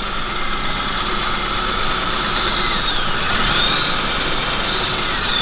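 Ford C-Max engine idling with a thin, high whistle over it. The whistle dips in pitch twice, about three seconds in and again near the end. The engine is drawing false air through a cracked hose between the crankcase breather and the intake manifold.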